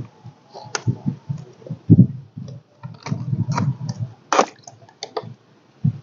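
Irregular plastic clicks and knocks as the clear debris canister and mesh filter basket of a cordless handheld pool vacuum are pulled apart and handled, with low rumbling handling noise in between.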